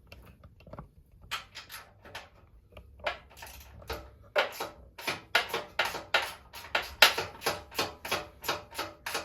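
Hand ratchet wrench clicking in short strokes, a steady run of sharp metallic clicks several a second that grow louder about four seconds in.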